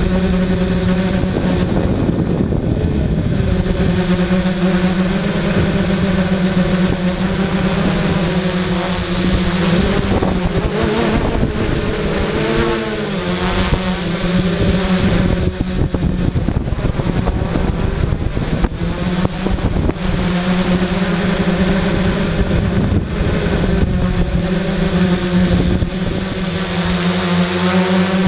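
Homemade quadcopter's electric motors and propellers buzzing steadily, heard from the GoPro mounted on it, with heavy wind and vibration noise; the pitch wavers and dips around the middle as the throttle changes.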